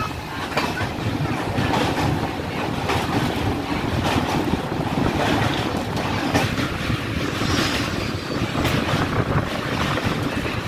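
Passenger train running across a steel truss railway bridge, heard from beside the coach's open window: a steady rumble of wheels on rails mixed with rushing wind, and scattered sharp clicks and clanks.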